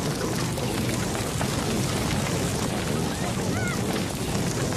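A herd of reindeer milling and running in a corral: a dense, steady rumble of trampling animals. A few short, high rising calls sound through it about three and a half seconds in.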